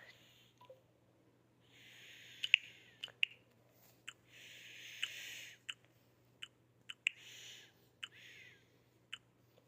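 A sick person breathing close to the microphone: several hissing breaths about a second long each, with sharp clicks scattered among them.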